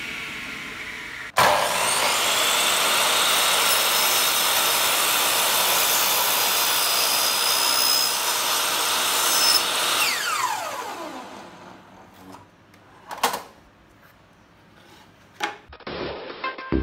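Electric miter saw starting suddenly about a second in and running as it cuts through a plywood board, then its motor winding down with a falling whine from about ten seconds in. A few short knocks follow.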